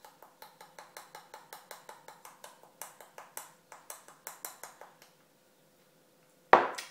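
A spice jar tapped over a metal spoon to shake the powder out: a rapid run of light clicks, about five a second, that stops after about five seconds. A single loud knock near the end.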